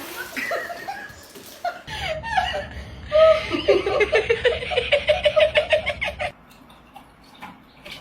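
A person laughing. It starts with scattered chuckles, then breaks into a fast run of repeated "ha" bursts about three seconds in, which stops abruptly about two seconds before the end.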